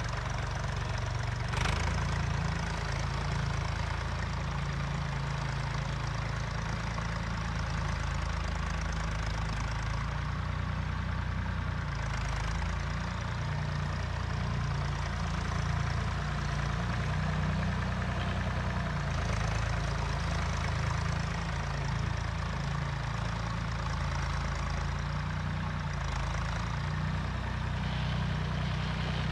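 Diesel farm machinery engine running steadily at low revs, with one sharp click about a second and a half in.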